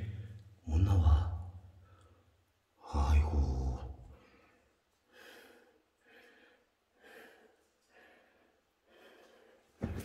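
A man sighing and breathing hard: two loud sighs near the start, then fainter breaths about once a second.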